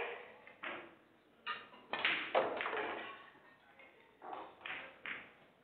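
Pool balls clacking: a series of about seven sharp clicks, each ringing on briefly in a large hall, from a shot at the table that pots the green ball.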